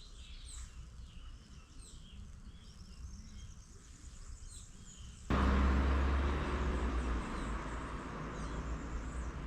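Small birds chirping over a low rumble. About five seconds in, a much louder steady noise with a deep hum cuts in abruptly and covers the birdsong.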